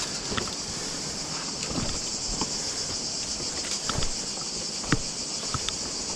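A steady, high-pitched chorus of insects, with scattered clicks and knocks of boots and gear on limestone rock as people scramble over boulders.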